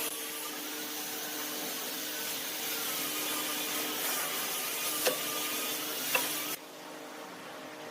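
Wood lathe running with a workpiece being worked as it spins: a steady scraping hiss over the motor's hum, with two sharp knocks about a second apart. Near the end the hiss stops suddenly and the lathe's hum carries on.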